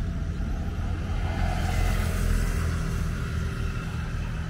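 A steady low motor drone, like a small engine running.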